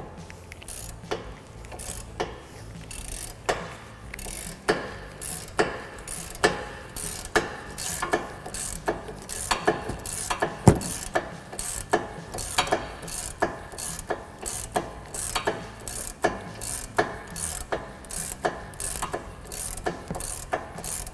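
Hand ratchet wrench clicking in a steady rhythm of roughly one to two clicks a second as it backs out a front brake caliper bracket bolt that has already been broken loose.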